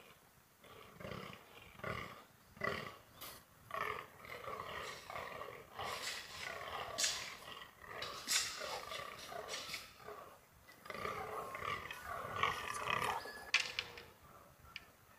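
Rutting fallow bucks croaking: a run of short, rhythmic, guttural croaks, about one to two a second. Brief sharp crackles come in between.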